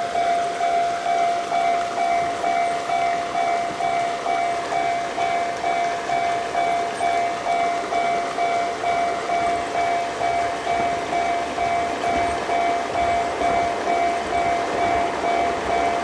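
Japanese railway level-crossing warning bell ringing in a steady repeating rhythm, about two dings a second, sounding while the crossing signals flash to warn that a train is approaching.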